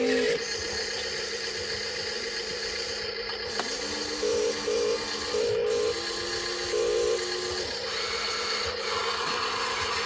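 Small electric gear motors of a Huina RC construction toy whining in short runs, starting and stopping several times, over a steady hum.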